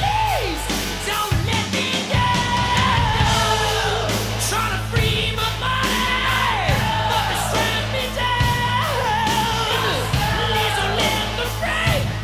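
Background music: a song with a sung vocal line of sliding, wavering notes over a steady drum beat and bass.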